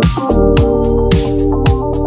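Background music: keyboard or synth chords over a steady electronic beat, a low kick drum and hi-hat strikes a little under two per second.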